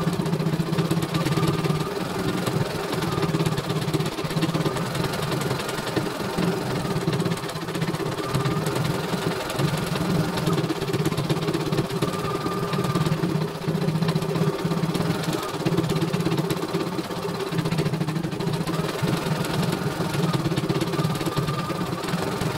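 CNY E900 computerized embroidery machine stitching a design: a rapid, steady run of needle strokes while the hoop carriage moves. A short high whine comes and goes every few seconds.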